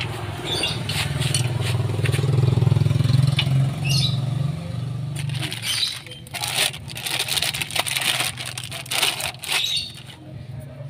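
A vehicle engine runs with a steady low hum for about the first five seconds. It then gives way to a run of sharp metallic clicks, clinks and scrapes from parts and tools being handled while a car's rear wheel hub and bearing are taken apart.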